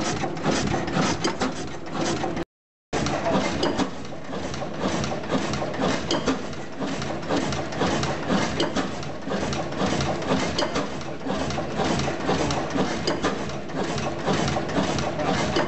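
A 1907 12 hp Blackstone kerosene oil engine running with a steady, rapid mechanical clatter. The sound drops out briefly about two and a half seconds in, then the running resumes.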